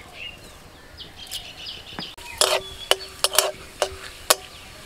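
Metal spatula stirring spices in hot mustard oil in a metal kadai: a run of about six sharp clinks and scrapes in the second half, each with a short metallic ring. Faint bird chirps in the first half.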